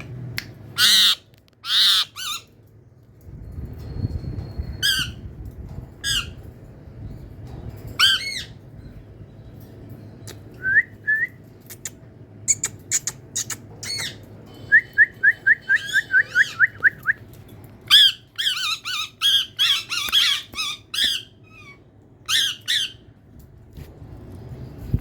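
Pet parrot squawking and calling: loud, harsh screeches, a quick run of about a dozen short chirps midway, and a dense string of calls near the end.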